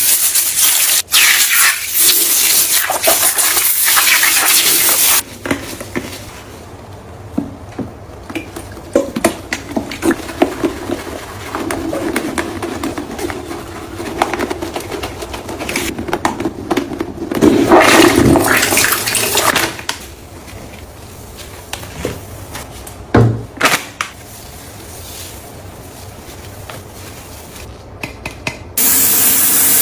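Household cleaning sounds: a loud rushing hiss of water or spray for the first few seconds, then clinks, knocks and rattles of objects being handled, with another burst of rushing noise a little past the middle and again just before the end.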